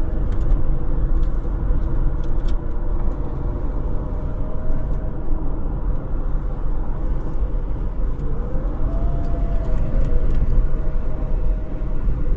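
AM radio tuned to 960 giving out steady static with faint whistling tones. One whistle bends up about eight seconds in and slides back down a couple of seconds later, and a few crackles come through.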